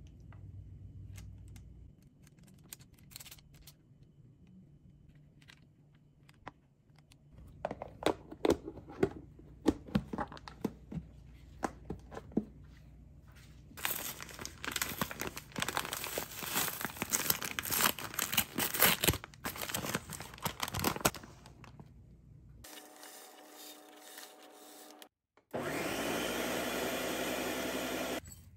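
Scattered clicks and taps, then a paper bag of quick oats crinkling as it is opened and handled. Near the end a Ninja countertop blender starts and runs steadily at high speed, grinding the oats into flour.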